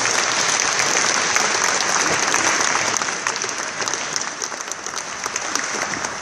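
Audience applauding: dense, steady clapping of many hands that eases slightly in the last few seconds and cuts off suddenly at the end.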